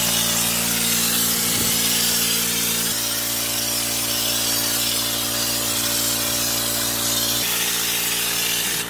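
Compressed-air schutz gun spraying Raptor bed liner coating from a screw-on bottle: a steady, loud hiss of air and coating, with a steady motor hum underneath that shifts slightly about three seconds in and again near the end.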